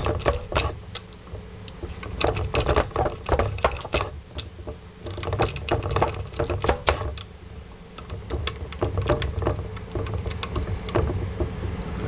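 Short-hook lock pick working the pins of a five-pin Kwikset deadbolt under tension from a twist flex wrench: irregular small metallic clicks and scrapes, over a low steady rumble.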